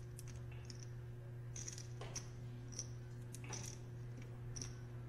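Poker chips clicking against each other as a player fingers and shuffles his chip stack: irregular light clicks over a steady low hum.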